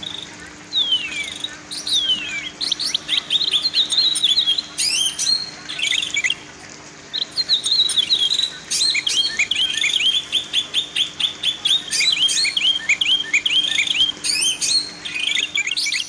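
Songbird singing: fast runs of short chirps and trills, with two downward-sliding whistles about a second in.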